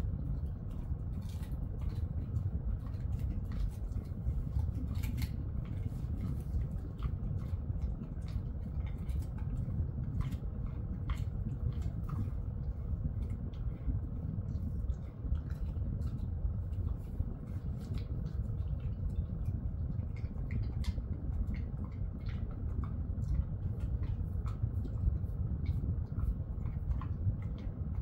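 A Jindo-mix dog chewing pieces of a horse-meat treat, small scattered clicks and smacks of its jaws, over a steady low hum.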